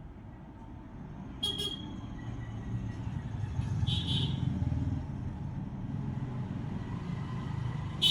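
Passing road traffic: a low engine rumble that swells in the middle, with a few short high-pitched sounds over it.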